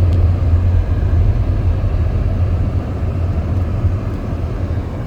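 Blizzard wind buffeting the microphone: a steady, loud low rumble with a hiss of blowing wind above it.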